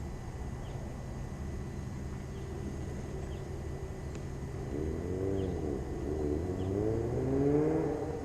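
A road vehicle's engine running with a steady low hum, then rising and falling in pitch from about five seconds in as it revs, growing louder toward the end.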